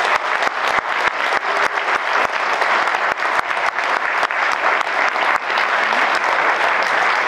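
Audience applauding: dense, sustained clapping from a roomful of people.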